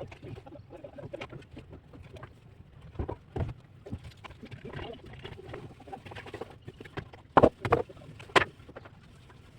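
Plastering work with a steel trowel on cement-sand plaster: scraping, and sharp knocks of the tool against the wall and mortar, two around three seconds in and a louder cluster of three near the end.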